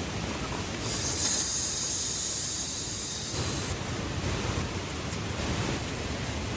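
Steady rushing water noise of heavy rain and a nearby waterfall. About a second in, a louder, high hiss rises over it for about three seconds, then drops back.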